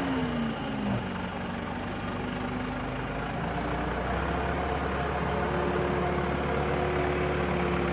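JCB 3CX backhoe loader's diesel engine running: the revs drop over the first second, then it runs steadily at an even pitch, its low hum growing a little louder about halfway through.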